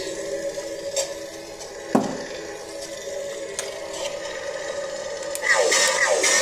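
Neopixel lightsaber's sound board playing its steady hum through the hilt speaker, with a sharp hit and a quickly falling tone about two seconds in and a rapid run of falling zaps near the end.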